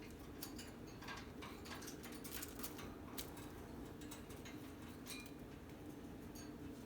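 Cockatiels moving about, their beaks and claws making scattered light clicks and taps, over a steady low room hum.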